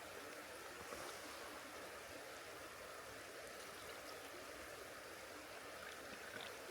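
A mountain stream running steadily, an even rush of water.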